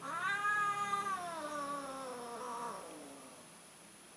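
A cat yowling during mating courtship: one long drawn-out call that rises at the start, holds, then slides down in pitch and fades out after about three seconds.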